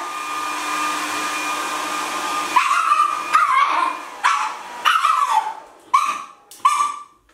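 Handheld hair dryer blowing with a thin motor whine, then a Shiba Inu puppy barking at it, about six short barks each falling in pitch, while the dryer's blowing comes and goes between them.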